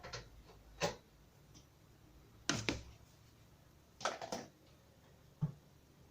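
About five short clicks and knocks a second or two apart, the loudest a double knock about two and a half seconds in and a cluster about four seconds in.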